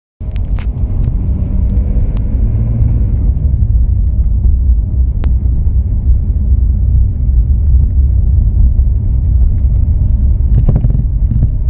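Porsche 997 Carrera on the move: a steady low rumble of road and running noise, with a few sharp knocks from a rear shock absorber, one about five seconds in and a cluster near the end. The owner blames the knocking on the shock's rubber.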